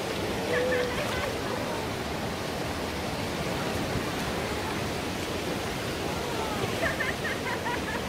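A shallow mountain stream rushing over rocks: a steady, even rush of water. Faint distant voices rise briefly over it near the start and near the end.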